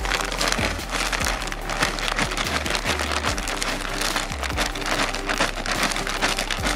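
General-purpose potting soil pouring from a plastic bag into a planting hole, a dense irregular patter of falling soil with crinkling of the bag. Quiet background music underneath.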